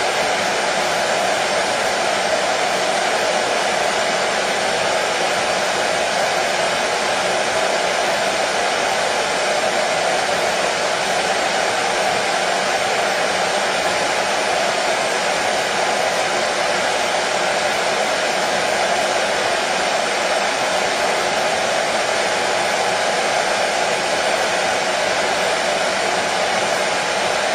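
Hair dryer running steadily as a continuous whooshing rush of air, with no change in speed, used as white noise to calm colicky babies to sleep.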